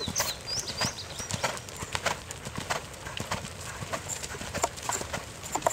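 Hoofbeats of a horse cantering on sand arena footing, a steady repeating rhythm of thuds.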